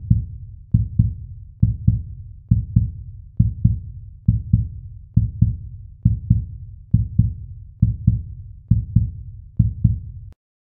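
Heartbeat sound effect: low double thumps, lub-dub, repeating a little under once a second, cutting off near the end.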